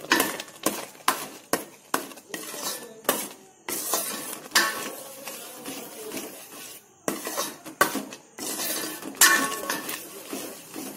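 A metal spoon scraping and clinking against a stainless steel pan in irregular strokes, a few of them ringing briefly. It is stirring thick reduced milk with melted ghee mixed in, the last stage of cooking milk cake.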